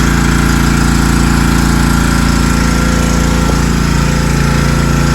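Petrol-engine pressure washer running steadily, its engine drone under a constant hiss.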